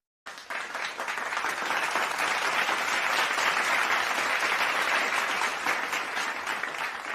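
Crowd applause, a dense patter of many hands clapping that starts suddenly, holds steady and then thins out and fades near the end.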